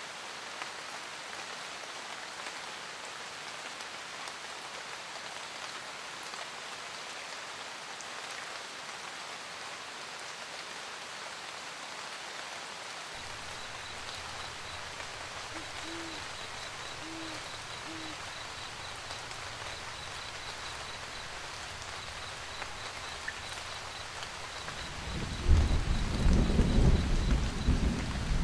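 Steady rain pattering, with an owl hooting three short times about halfway through. Near the end a rumble of thunder builds in and becomes the loudest sound.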